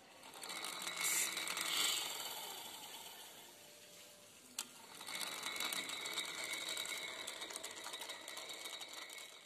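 Weft feeder (accumulator) of a rapier loom running: a mechanical whir made of a fast, even rattle with a thin whine over it. It swells, eases off, gives one sharp click about four and a half seconds in, then runs steadily again.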